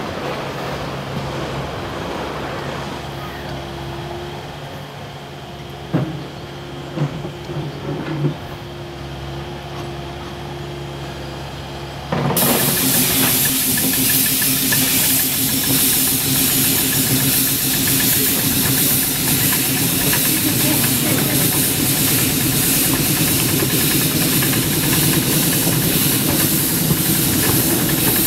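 Narrow-gauge saddle-tank steam locomotive: a steady hum with a few clunks, then about twelve seconds in a loud steam hiss starts suddenly and keeps going as the train gets under way.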